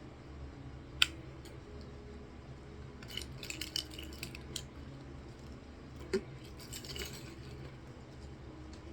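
Light clicks and clinks of small hard objects being handled: one sharp click about a second in, a quick cluster of clinks a couple of seconds later, and a knock near the middle, over a steady low hum.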